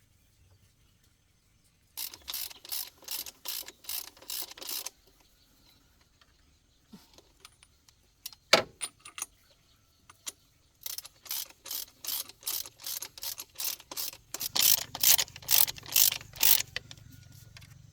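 Ratchet wrench being worked on a fastener, in two runs of quick clicks about three a second with a single sharper knock between them. A low steady hum sets in near the end.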